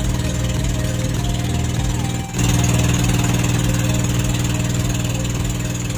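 Motorized outrigger boat's engine running steadily, with a brief drop about two seconds in, after which it comes back a little louder.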